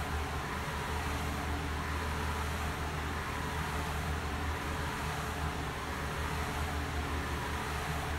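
Dual turntable running at 45 RPM: a steady low hum under an even hiss.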